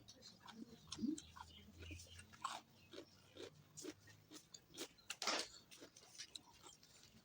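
A person chewing and biting food close to the microphone: irregular wet mouth smacks and crunches, with a louder crunch about five seconds in.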